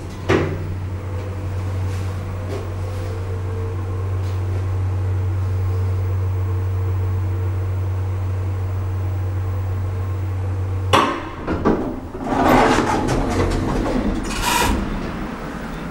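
1993 Otis glass elevator in motion: a knock as the car sets off, then a steady low hum while it travels. About eleven seconds in the hum cuts off with a clunk as the car stops, and its doors then slide open with a rush of mechanical noise.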